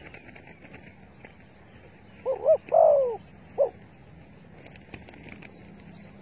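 Spotted dove cooing once: two short notes, then a longer note that falls in pitch, then a short last note.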